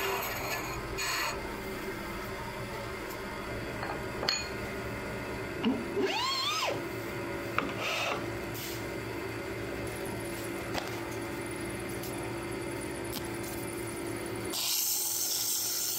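Wood lathe spinning a small tulip poplar piece with a steady hum, the turning tool's cut ending right at the start. About six seconds in there is a short squeaky glide rising then falling, and near the end a hiss starts as sandpaper is pressed to the spinning wood.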